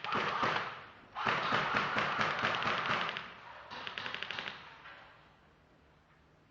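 Airsoft guns firing in rapid full-auto bursts of quick, sharp clicks: a short string at first, a longer dense run from about one to three seconds in, and a last quick burst near four seconds in before it dies away.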